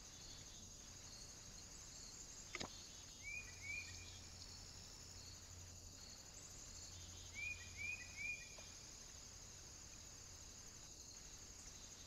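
Short chirps of a small bird, two about three seconds in and three more about eight seconds in, over a faint steady high hiss; a single sharp click comes just before the first chirps.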